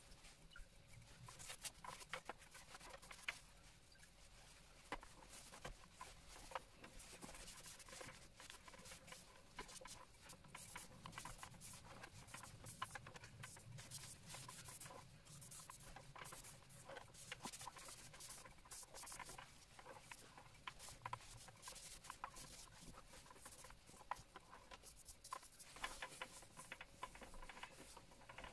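Faint, irregular scratching and rubbing by hand on a slate clock case as its surface is cleaned of marks.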